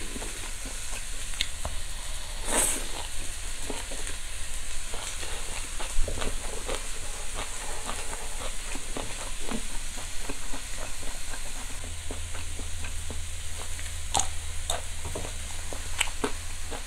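Top blade beef steak sizzling on a small tabletop charcoal grill, a steady hiss with many small crackling pops, mixed with close-up chewing.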